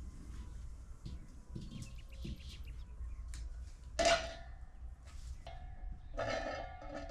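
A brass cooking pot set down on a clay stove: a single metal clank with a short ringing tail about four seconds in, amid a few light clicks of utensils.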